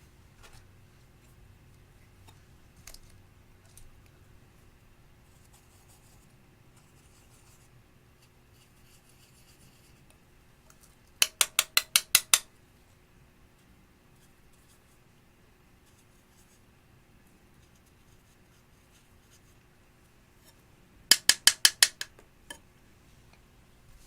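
Glossy slime being poked and pressed, giving two runs of quick, sharp clicks, about five a second for a second or so: about eleven seconds in and again near the end. Between them there are only faint, soft handling sounds.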